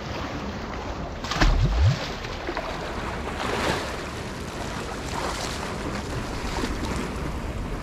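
Sea water washing and sloshing against shore rocks, with wind buffeting the microphone. A short loud low thump comes about a second and a half in.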